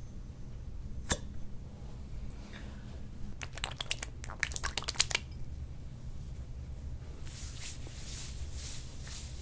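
A single sharp click, then a quick run of crackling spurts as massage oil is squeezed out of a plastic bottle onto a bare back, followed by soft, rhythmic rubbing of a gloved hand spreading the oil over the skin.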